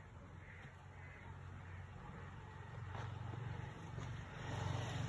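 Birds calling off and on over a low, steady rumble that grows louder toward the end.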